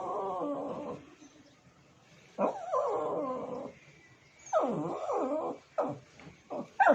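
Shih Tzu whining in three drawn-out, wavering calls of about a second each, then a few short yips near the end: the dog is calling for another dog's attention.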